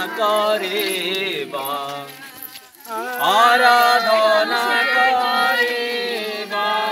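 A group of voices singing a chant-like song together, with long held notes; the singing breaks off briefly about two and a half seconds in and starts again.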